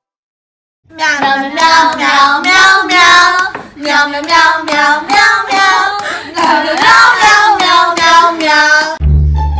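A voice in a long run of short, wavering, sung-sounding notes, starting about a second in and stopping shortly before the end.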